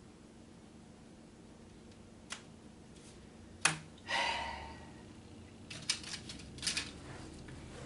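N scale track sections with a plastic base being clicked together and slid across a paper-covered tabletop: a small click, then a sharp click about three and a half seconds in, followed by a short scraping rustle and a cluster of small clicks near the end.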